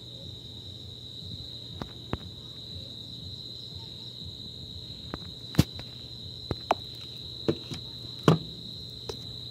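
A steady high-pitched drone like insects chirring, over a low hum, with scattered sharp clicks and knocks, most of them in the second half; the loudest comes about eight seconds in.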